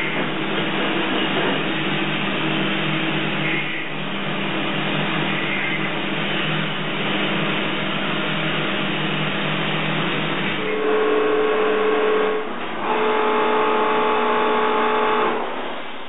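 Metalworking power tools running on a bronze casting: a steady machine noise with a low hum, then a high steady buzz in two stretches of a couple of seconds near the end, the second cutting off suddenly.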